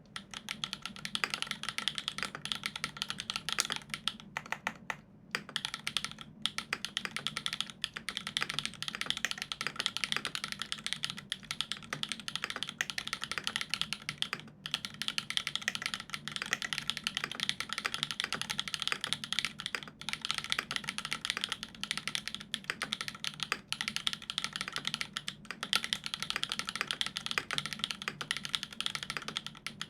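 Continuous fast typing on a Dolumina65 65% mechanical keyboard with an aluminium plate and lubed Everglide Dark Jade Black linear switches, fitted with GMK keycaps. The keystrokes come in dense runs, with short pauses about four seconds in and near the middle.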